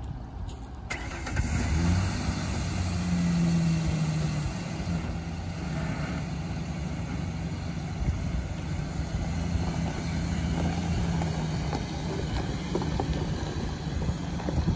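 A 2001 Ford Ranger's 4.0-litre V6 starting about a second in, running a little higher for a couple of seconds, then settling into a steady idle.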